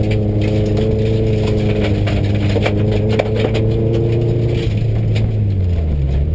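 Subaru rally car's flat-four engine heard from inside the cabin, running steadily under load on a gravel road, with scattered sharp clicks and rattles. About three-quarters of the way through the revs fall away, then start to climb again at the very end.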